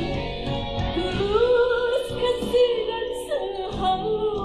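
A woman singing live over an instrumental accompaniment, her long held notes wavering with vibrato; a new phrase starts about a second in.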